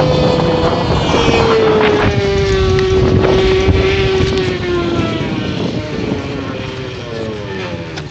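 Scooter engine with a sports-bike-style exhaust running, its note falling slowly in pitch and growing quieter toward the end.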